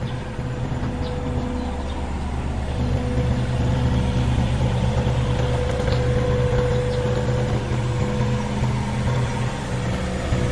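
Diesel engine of a Hitachi ZX30UR-2 compact excavator running steadily, with a steady high whine over it; it gets slightly louder about three seconds in.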